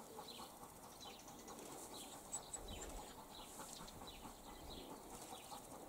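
Faint birds chirping, short high chirps repeating every second or so over quiet rural ambience.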